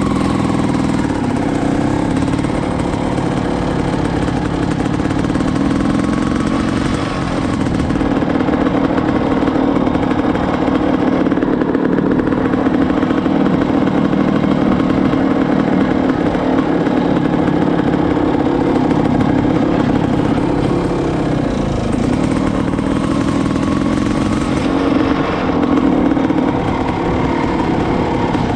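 Honda CR500R's two-stroke single-cylinder engine running under way, its pitch rising and falling a few times as the bike speeds up and slows.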